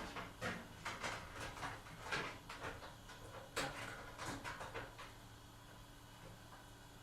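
A run of irregular light knocks and clatters from household chores, which stops about five seconds in and leaves faint room tone.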